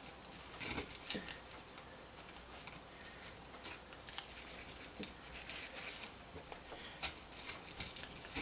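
Faint rustling of natural-fibre twine being wrapped and pulled around a tool handle by hand, with scattered soft clicks and taps.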